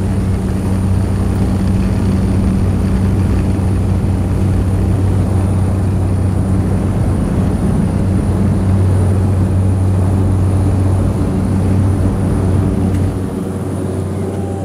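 Cabin noise of a Cessna 208B Grand Caravan's single turboprop at takeoff power during the takeoff roll: a loud, steady propeller drone with a thin high turbine whine. The sound drops a little near the end.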